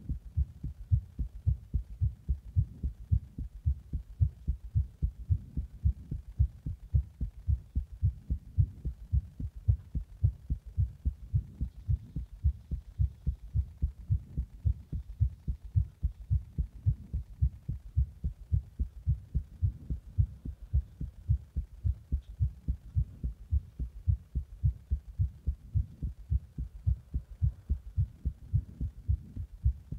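A human heartbeat, heard close up as a steady, regular run of low thumps. This is the heart of someone who has just drunk a Monster energy drink in a hot bath and pressed on the chest.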